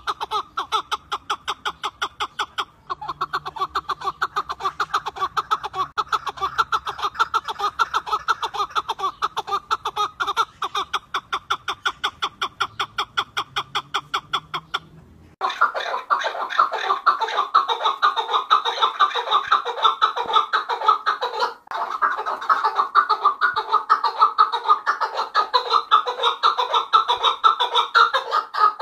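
Chukar partridges calling: a long run of short, repeated clucking notes, several a second. About halfway through it switches abruptly to a louder, denser chorus of the same calls.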